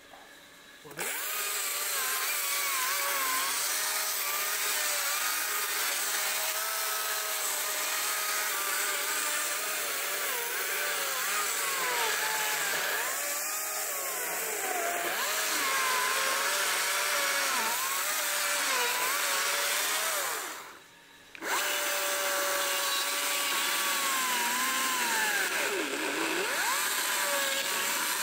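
Chainsaw cutting into a log, its engine note sagging and picking up again as it works through the wood. It breaks off abruptly for under a second about three-quarters of the way through, then runs on.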